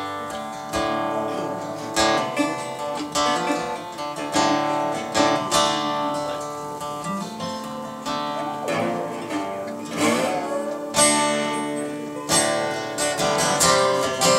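Instrumental intro played on two strummed acoustic guitars and a picked resonator guitar, with repeated strums and ringing chords. About nine seconds in, a few notes glide up and down in pitch.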